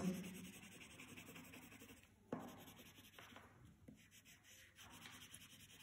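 Coloured pencil shading on paper: faint, quick scratching strokes laid down one after another, with a single light tap a little over two seconds in.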